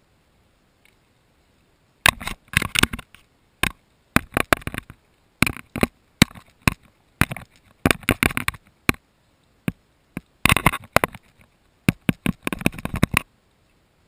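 Gull's beak pecking and nibbling at a GoPro camera housing: irregular bursts of sharp clicks and taps, starting about two seconds in and stopping shortly before the end.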